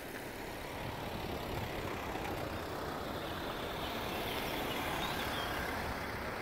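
Steady running noise of a car driving slowly along a road: an even rush of engine and tyre sound, slightly louder from about a second in.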